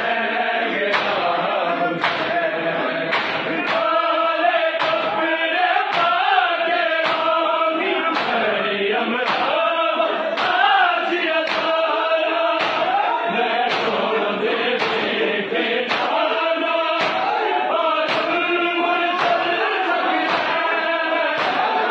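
A large group of men chanting a Punjabi noha (a lament for Hussain) in unison. Hands slap bare chests in matam about once a second, in time with the chant.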